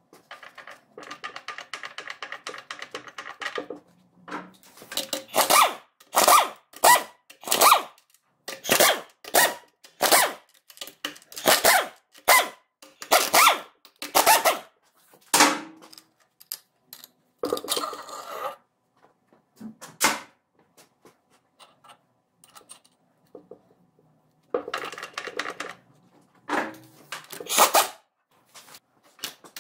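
Tools working on a ZF 16S151 truck gearbox during its strip-down: a rapid rattling burst for about three seconds, then a long run of sharp metallic knocks, about one and a half a second. Near the end come two more short rattles and a few more knocks.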